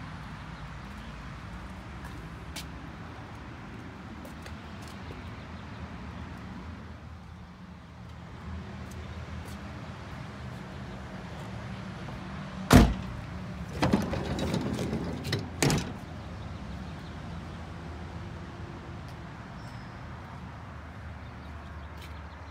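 Doors of a Renault Kangoo van being handled: one sharp clunk about halfway through, then a couple of seconds of rattling and knocking with a last bang. A steady low rumble of road traffic runs underneath.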